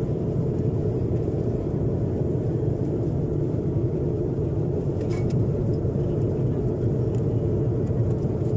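Steady low rumble inside an airliner cabin: engine and airflow noise heard from within the plane.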